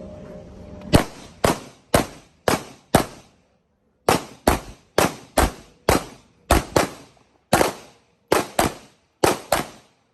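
Handgun shots fired in a steady string at about two a second: five sharp cracks starting about a second in, a pause of about a second, then about a dozen more.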